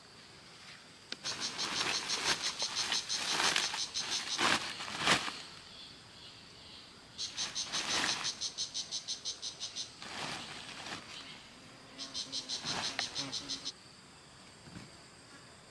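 An insect calling in three bouts of rapid, high-pitched pulses, about eight a second, each bout lasting two to four seconds. A few sharp knocks come in between, the loudest two about four and five seconds in.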